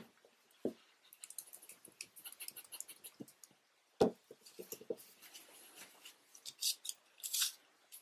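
Faint, quick rattling clicks of a Vallejo Model Color acrylic paint dropper bottle being shaken, with a single sharp knock about four seconds in.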